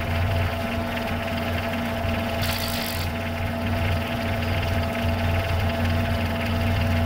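Compact tractor engine idling steadily with a low, even hum, and a short burst of hiss about two and a half seconds in.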